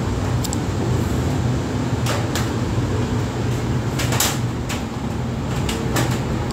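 A steady low hum over a background hiss, broken by a handful of short, scattered noises.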